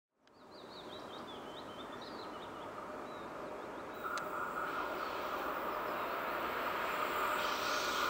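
Approaching electric passenger train, an Sr1 locomotive hauling an intercity train, heard as a steady noise that grows slowly louder, with a steady high tone joining about four seconds in. Birds chirp in the first few seconds.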